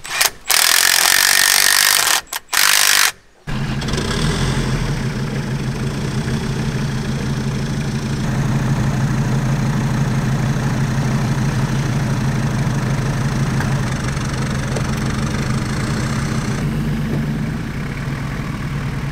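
Off-road 4x4 engine idling steadily. It starts abruptly about three and a half seconds in, after a few seconds of loud rasping noise bursts.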